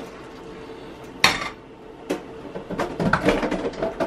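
Cookware clattering: a sharp metal clank with a short ring about a second in, then a run of lighter knocks and clinks as a saucepan is handled and set down on an electric coil burner.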